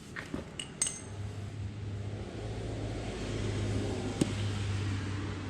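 A few light metallic clinks of small motorcycle parts and tools being handled, then a steady low hum that sets in about a second in and continues, with one sharp click near the end.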